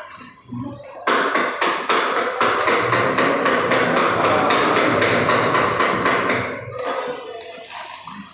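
Metal ladle knocking and scraping rapidly against a wok, about five strokes a second, over a hiss. It starts suddenly about a second in and stops shortly before seven seconds.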